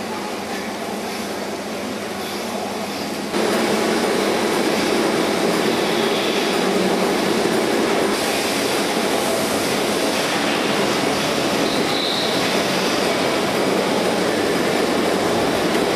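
Milking parlour machinery running with a steady mechanical noise that jumps suddenly louder about three seconds in.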